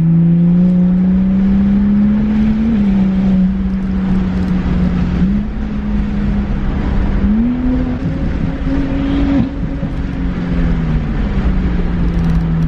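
BMW 135i's turbocharged 3.0-litre inline-six with aftermarket downpipe and axle-back exhaust, pulling hard, heard from inside the cabin. The engine note climbs and then drops sharply about two and a half seconds in, jumps up twice in the middle and falls back twice near the end, as the paddle-shifted gearbox changes gear.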